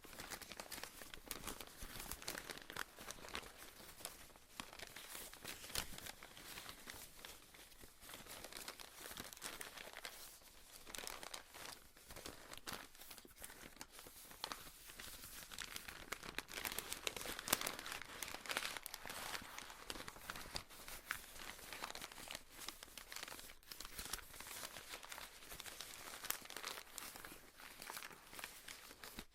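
Paper being torn, a continuous dense crackle of small rips and crinkles.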